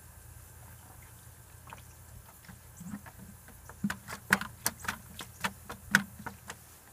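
A child's hands slapping and splashing water inside a plastic bucket: a quick, uneven run of about ten sharp splashes, starting around four seconds in, two of them much louder than the rest.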